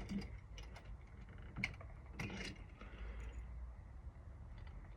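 Faint, scattered small metal clicks and taps from a deadbolt lock cylinder being handled, its retaining cap being loosened slightly by hand. The louder clicks come about one and a half and two seconds in.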